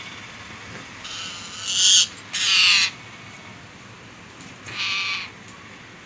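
Caged parakeet giving harsh screeching calls: two loud ones close together, then a fainter third a couple of seconds later.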